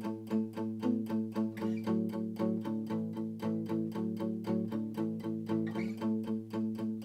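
Guitar playing an instrumental intro: an evenly picked, repeating pattern of notes at about five a second over a held low note.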